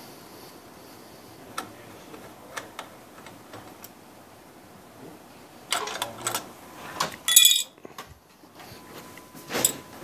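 Screws being backed out of a small bracket on an IBT belt unit with a nut driver: faint scattered clicks, then louder metal clatter with a sharp ringing metal clink about seven seconds in.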